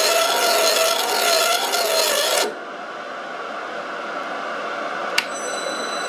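Metal lathe single-point cutting a thread: loud machine noise with a ringing, wavering squeal from the cut, which stops suddenly about two and a half seconds in. A quieter steady hum follows, with a single sharp click about five seconds in.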